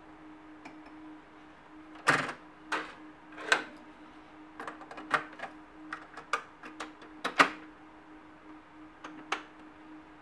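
Fisher MC-3020 compact stereo's controls being worked by hand: about a dozen sharp mechanical clicks and clunks from the top-loading cassette deck's keys and door, starting about two seconds in. A faint steady hum runs underneath.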